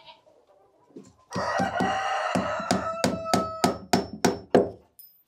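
A rooster crows loudly, and over the end of the crow come about seven sharp hammer blows in quick succession, roughly three a second, as a nail is driven into a wooden barn rafter.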